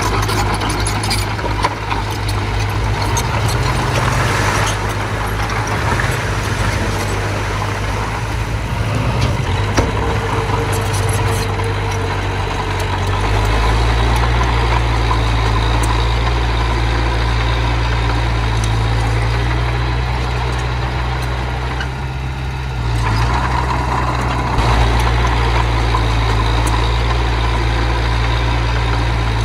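Diesel engine of a small bulldozer or dump truck running steadily at work. Its low engine note shifts about halfway through and drops briefly near the end before picking up again.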